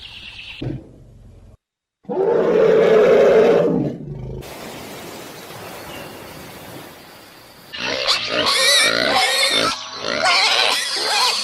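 A run of separate animal calls spliced one after another: a loud call of about two seconds, a quieter noisy stretch, then several seconds of loud, busy calling.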